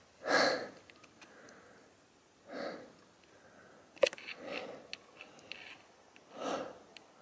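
A person breathing hard through the nose and mouth, four breaths about two seconds apart, with one sharp click a little past the middle.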